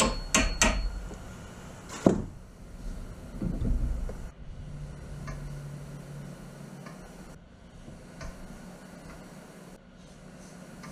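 A hammer tapping a metal pin into a hole in a wooden mast: three quick sharp taps at the start, then a single louder knock about two seconds in, followed by fainter handling sounds.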